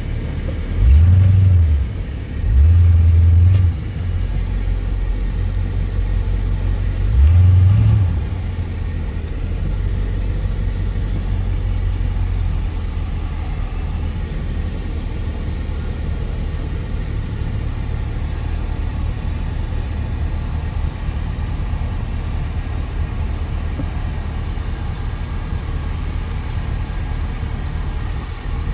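Steady low rumble, like a vehicle's, with three louder low surges: one about a second in, one at about two and a half seconds, and one at about seven seconds.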